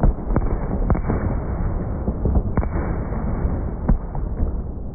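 New Year's Eve fireworks going off in a dense, continuous barrage of bangs and booms, with single loud bangs standing out right at the start, about a second in, and twice more later.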